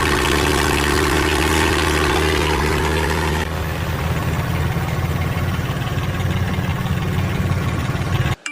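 A motor or engine running steadily. About three and a half seconds in it turns rougher and lower. It cuts off suddenly near the end.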